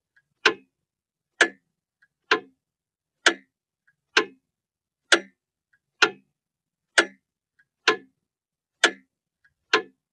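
Clock ticking, a sharp tick about once a second, with a much fainter click between every other pair of ticks.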